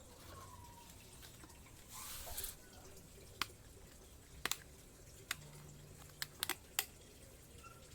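Handling of the plastic humidifier: a brief rustling swell about two seconds in, then a scattering of sharp, separate clicks and taps.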